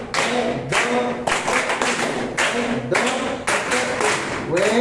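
A classroom of children clapping their hands together in a rhythmic clapping game, the claps coming in quick groups, with short held chanted voice notes between them.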